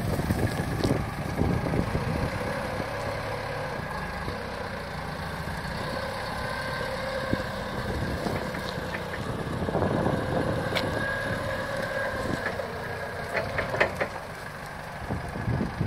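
The four-cylinder diesel engine of a Toyota 7FDF30 forklift running steadily as the forklift drives and turns, with a few light knocks near the end.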